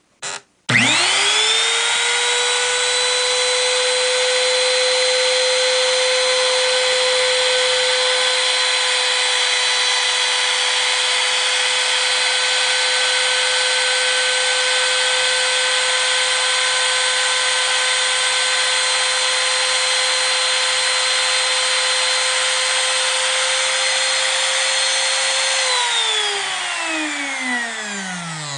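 A small hand-held router, after a couple of brief clicks, spins up quickly to a steady high whine as it routes the saddle slot in an acoustic guitar's bridge through a template. Near the end it is switched off and winds down, its pitch falling.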